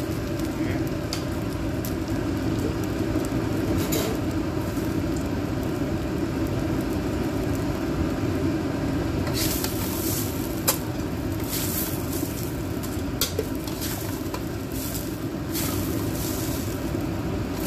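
Rice sizzling as it is stir-fried in a carbon-steel wok, over a steady background noise. From about halfway in, a metal spatula scrapes across the wok several times as the rice is scooped out, with one sharp click.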